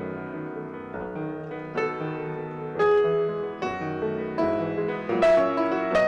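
Solo piano playing a slow, gentle classical or sacred piece, with single notes and fuller chords struck every half second or so and the loudest chords a little past the middle.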